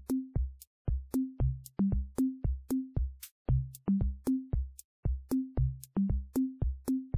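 Background electronic music: a drum-machine beat of deep kick drums and short low bass notes with light high clicks, about three hits a second.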